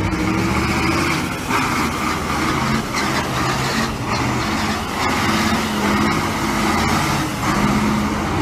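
KamAZ dump truck's diesel engine running hard as the truck drifts sideways on ice, its engine note changing pitch a few times.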